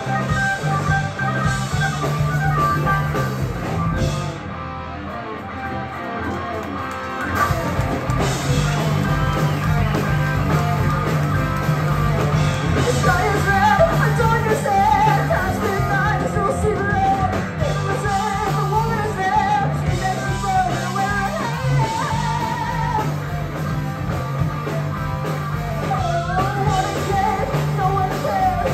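Live rock band playing: electric guitars, bass, drums and keyboard, with a singer's voice over the band. About four seconds in, the band drops to a quieter, thinner passage for about three seconds, then comes back in at full volume. The singing comes in about halfway through.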